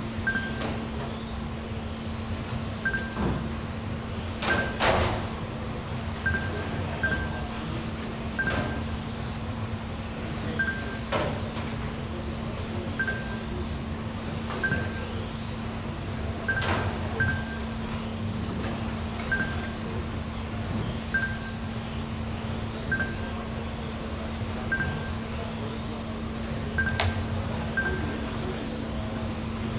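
Electric 1/12-scale GT12 racing cars whining as they sweep past on a carpet track, their pitch rising and falling with each pass. Short electronic beeps come every second or two, typical of the lap-timing system as cars cross the line, over a steady low hum.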